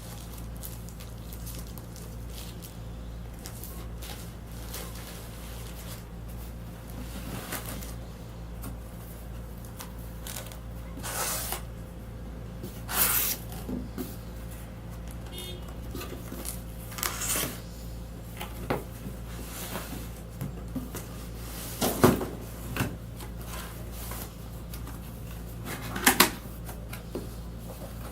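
Cardboard box and packaging being handled and opened: scattered rustles and scrapes with several sharp knocks, the loudest near the end, over a steady low hum.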